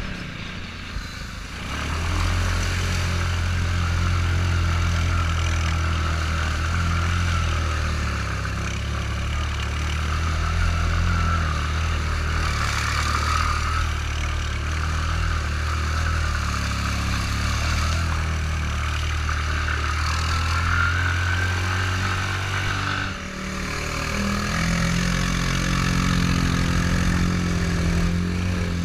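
Off-road utility vehicle engine running under steady throttle while driving through a deep mud hole. It eases off briefly about a second in and again near three-quarters through, then comes back at a higher engine note.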